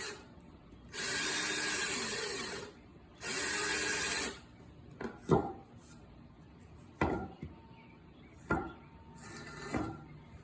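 Power drill boring into wood in two runs, the first about a second and a half long, the second about a second, followed by a few sharp knocks.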